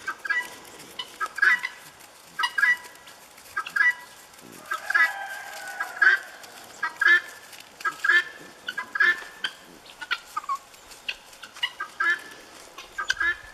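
Domestic helmeted guinea fowl calling: short, harsh, chattering calls repeated in bursts about once a second. The birds are giving their alarm call, set off by the owner's whistling rather than by a predator.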